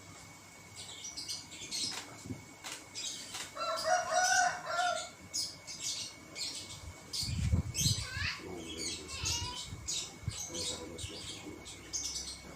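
Birds calling and chirping, mixed with short rustles and taps, over a faint steady high-pitched tone.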